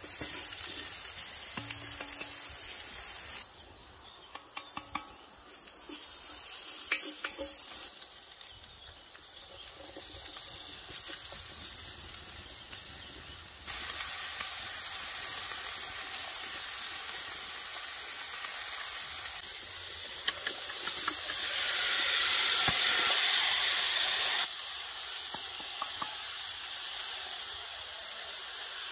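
Chopped vegetables sizzling and frying in a hot cast-iron pot over a campfire, with the light clicks and scrapes of stirring. The sizzle changes level abruptly a few times, quieter for a stretch about a third of the way in and loudest for a few seconds near the end.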